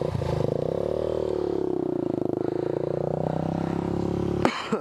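Single-cylinder dual-sport motorcycle engine running close by, its revs sagging about halfway through and then picking back up. A sharp knock or clatter cuts in near the end.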